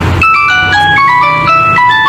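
Nokia phone ringtone playing: a quick melody of short, clear electronic notes over a steady low drone, starting abruptly out of silence.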